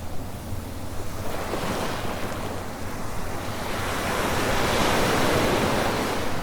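Sea waves breaking and washing up the beach. One wave builds to its loudest about five seconds in and eases off near the end, over a low wind rumble on the microphone.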